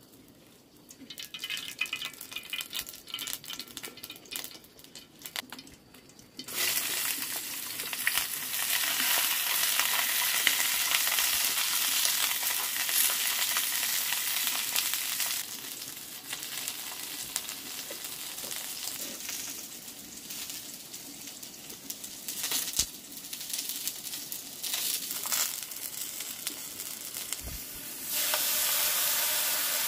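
Food frying in a pan of hot oil. Light crackling and clicks come first, then a loud sizzle starts suddenly about six seconds in and eases off about halfway, with clicks of stirring. The sizzle swells again near the end.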